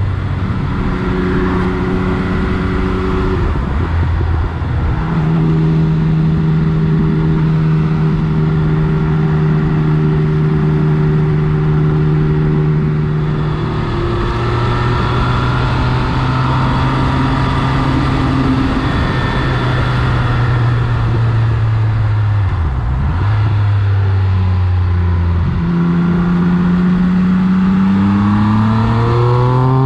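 Triumph Speed Triple 1200 RS inline-three engine through an SC Project CRT aftermarket muffler, heard from an on-board camera while riding, with wind rush over the microphone. The engine note holds steady pitches that step several times, dips sharply and recovers about three-quarters of the way through, and climbs steadily near the end as the bike accelerates.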